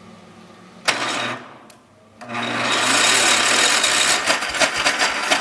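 John Deere 140's Kohler engine being cranked over by the starter on a cold, hard start. A short half-second crank comes about a second in, then a longer crank of about three seconds, with the engine not yet starting.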